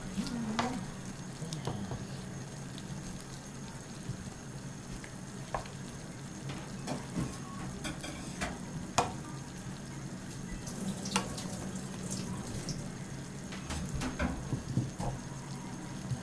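A nabe hot pot sizzling on the burner while ingredients are added, with scattered light clicks and taps of utensils against the pot over a steady low hum.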